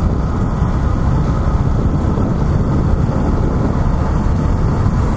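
Yamaha XTZ 150 motorcycle riding along: a steady low rumble and rush of engine, road and wind noise.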